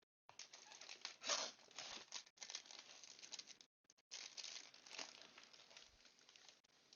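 Packaging crinkling and rustling in irregular scratchy bursts as a keycap set is unwrapped by hand.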